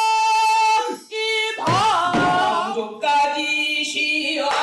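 A woman singing pansori. A long held note stops about a second in, followed by a short note, and then sung phrases that swoop up and down in pitch.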